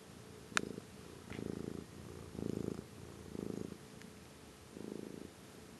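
Tabby cat purring while being stroked under the chin, the purr swelling and easing about once a second. There is a sharp click about half a second in.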